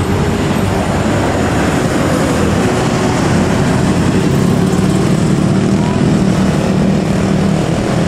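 Road traffic passing close by: buses, cars and motorcycles running, with a low, steady bus engine drone that grows louder in the middle.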